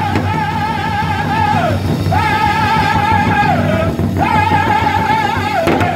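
Powwow drum group singing a Men's Chicken Dance song, several men striking a large hide drum with a steady beat while singing in unison. Three long, high held phrases, each with a wavering pitch and a downward slide at its end.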